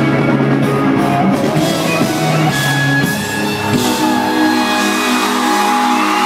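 Live concert music with held, guitar-like instrumental notes and no vocal line. The bass drops out about four seconds in.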